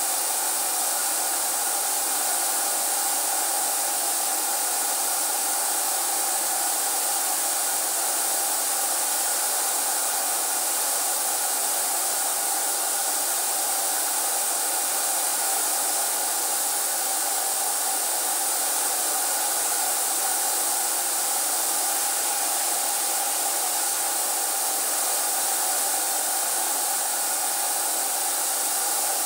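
HVLP paint sprayer's turbine running continuously while spraying: a steady, even rushing hiss with a constant hum beneath, no change in pitch or level.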